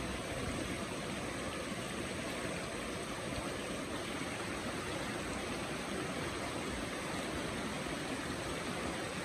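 Shallow stream rushing over rocks, a steady, unbroken wash of water.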